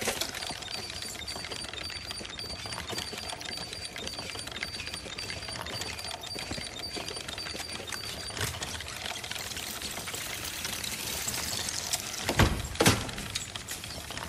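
Toy doll's tiny bicycle: a faint, regular ticking of its wheel, a few ticks a second, over a soft steady hiss, then two loud thumps near the end.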